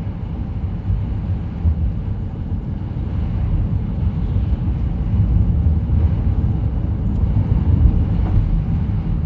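Car driving along a road, heard from inside the cabin: steady low engine and road rumble.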